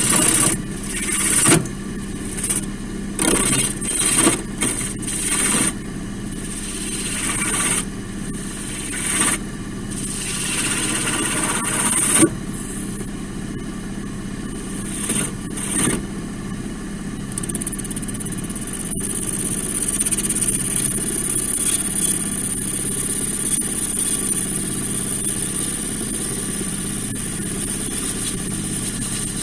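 Wood lathe running with a steady motor hum while a roughing gouge cuts into a spinning laurel log, roughing out a domed mushroom top. The cutting comes in repeated short loud bursts through the first half, then settles into steadier cutting.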